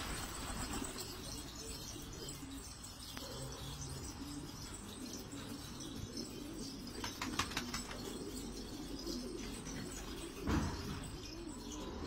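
A flock of domestic pigeons cooing, with wing flutters among them. A short run of quick clicks comes about seven seconds in, and a louder thump about ten and a half seconds in.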